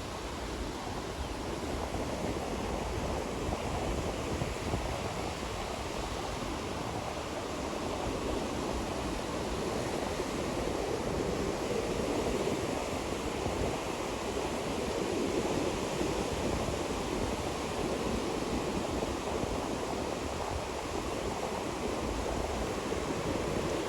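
Ocean waves washing onto a beach: a steady rush of surf that swells and eases slowly, with no single crash standing out.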